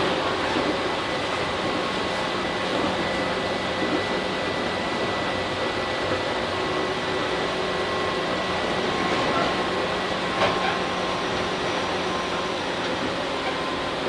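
Tobu 8000 series electric train running at a steady pace, heard from inside the car: a steady rumble of wheels on rails with a faint steady whine, and a single knock about ten and a half seconds in.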